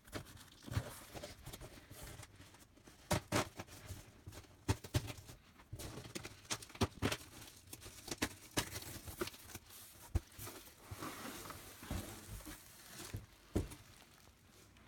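A cardboard shipping box being opened and unpacked by hand: irregular knocks and clicks of cardboard and chair parts being handled, with rustling and tearing of cardboard and packaging.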